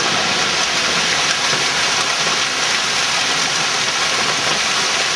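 Large hail hitting the house: a dense, steady clatter of countless impacts.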